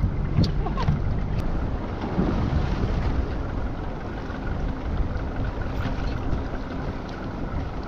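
Wind buffeting the microphone over steady sea and hull noise on a small boat, with a few faint clicks.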